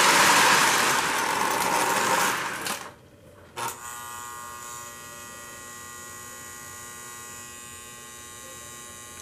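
Lionel 736 Berkshire O-gauge locomotive and train rolling on the track with a loud, even rushing noise for about three seconds, which then cuts off with a click. After that the stopped locomotive sits powered on, giving a steady electrical hum and buzz.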